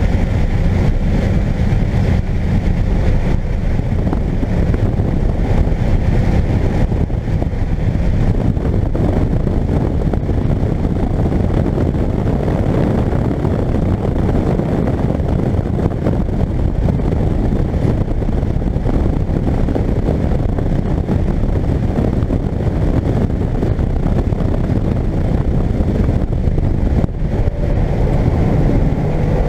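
Car engine running hard at high revs inside the cabin at track speed, mixed with steady wind and road noise.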